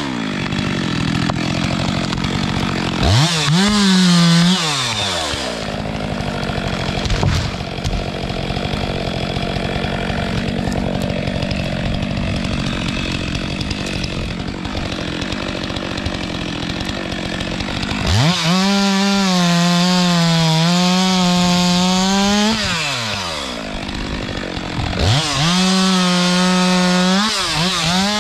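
Chainsaw engine running at high speed, going up to full throttle in several revs of a few seconds each. Between the revs it runs rougher and noisier, as when the chain is working through wood.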